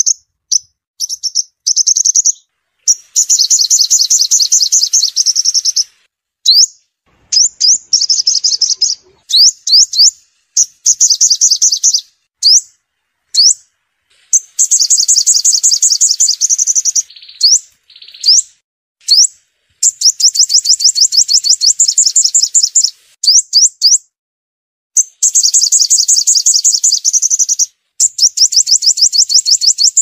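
Sunbird song played back as a lure recording for speaker trapping: rapid, high-pitched trills lasting one to three seconds each, alternating with single upward-sweeping notes and brief gaps.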